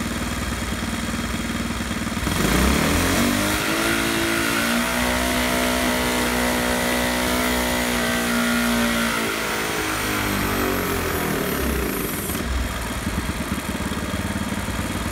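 A 212cc single-cylinder small engine is making a dyno pull on 93-octane fuel laced with 22% ethanol. It idles, then about two seconds in it jumps to full throttle. Its pitch climbs and holds for several seconds, then winds back down to idle near the end.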